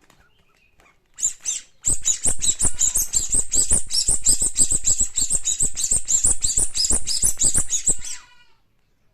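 A squeaky toy squeezed over and over in quick succession, about six or seven high-pitched squeaks a second, each with a soft thump. A short squeak comes about a second in, then a steady run of squeaks stops suddenly near the end.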